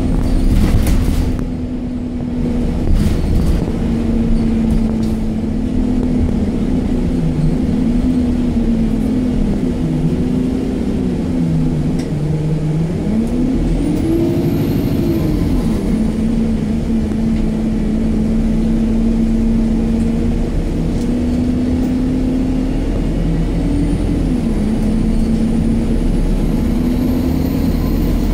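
Alexander Dennis Enviro 200 MMC single-deck bus heard from inside the passenger cabin while driving: a steady diesel engine and road rumble. The engine note rises and falls several times as the bus speeds up and slows.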